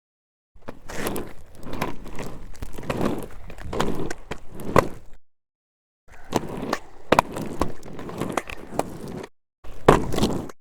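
Skateboard wheels rolling, a rough grinding rumble with sharp clicks scattered through it. It comes in three runs, cut off by two short silent gaps, one after about five seconds and one near the end.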